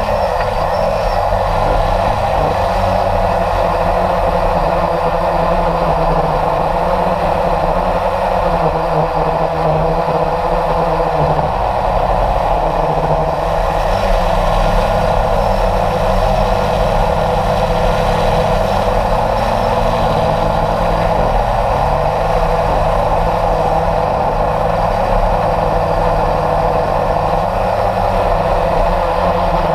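Radio-controlled model aircraft's motor running steadily at flying power, heard from the onboard camera, with wind rushing over the airframe.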